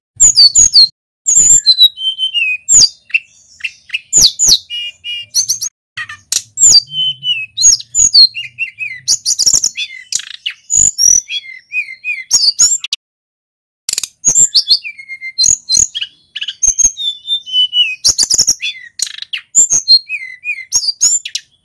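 A male sulingan gunung, a blue flycatcher, singing continuously: fast, varied runs of clear whistled notes that slide up and down, mixed with sharp clicks. There is a short break about 13 seconds in.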